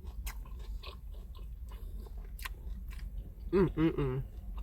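Close-miked chewing of a soft taco: wet mouth sounds and small clicks. About three and a half seconds in comes a brief hummed, wordless vocal sound.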